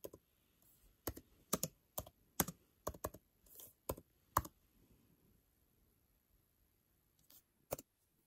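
Typing on a laptop keyboard: about ten separate, unhurried keystrokes over the first four and a half seconds, then a pause and two more key presses near the end.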